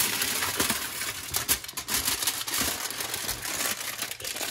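Aluminum foil crinkling and rustling in irregular crackles as it is peeled away from a slab of baked brownies.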